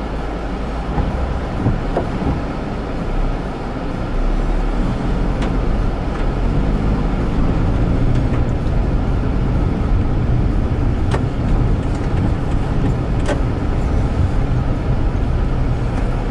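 Car interior noise while driving on a wet road: steady engine and tyre rumble under a hiss from the air-conditioning fan. The rumble grows louder about four seconds in as the car picks up speed, and three short faint ticks come later.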